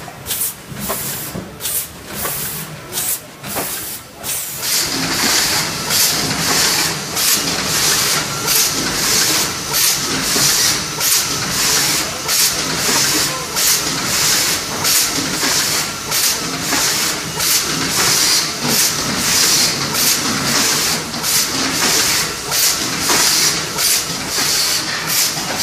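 Automated lemon bagging line running: the weigher and bagging machine give a continuous mechanical din with a quick run of short pneumatic hisses, more than one a second. The hiss grows much louder about five seconds in.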